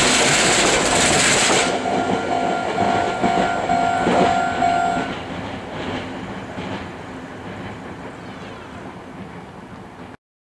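Meitetsu 6000-series electric train passing a level crossing: loud wheel and rail noise with clickety-clack for the first couple of seconds, then the crossing's alarm bell rings in quick pulses for about three seconds and stops. The train then fades away steadily until the sound cuts off near the end.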